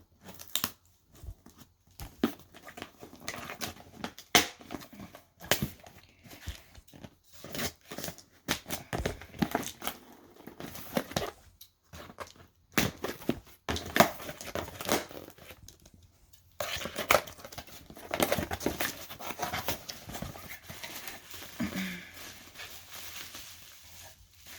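A shipped cardboard box being opened and unpacked: irregular crinkling and rustling of packing material, with short tearing sounds and handling knocks, broken by a few brief pauses.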